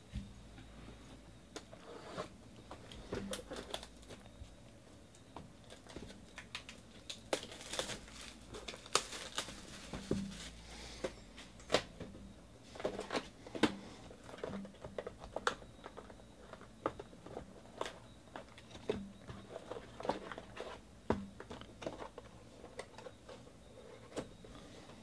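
Plastic shrink-wrap crinkling and tearing as a sealed box of trading cards is unwrapped, with scattered clicks and taps from the cardboard box being handled. The crinkling is densest from about 7 to 11 seconds in.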